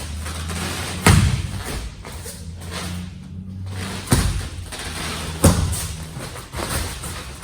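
Feet landing hard on a training floor three times, sharp thuds spaced a few seconds apart, as karate footwork drives both feet into the ground and springs off.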